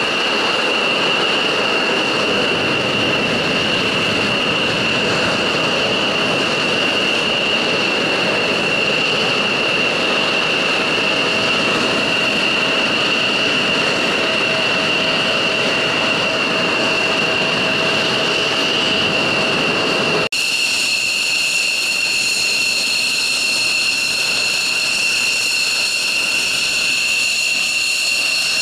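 F-16 fighter jet engines idling on the flight line: a steady jet whine with a piercing high tone over a rush of exhaust. About two-thirds of the way through the sound changes abruptly to a closer single jet's whine, with several higher tones and less rush.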